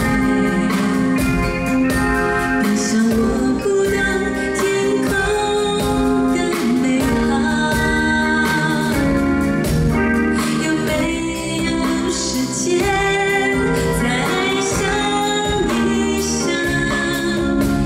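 A woman singing a Mandarin pop song live into a microphone over band accompaniment, as heard in a concert hall.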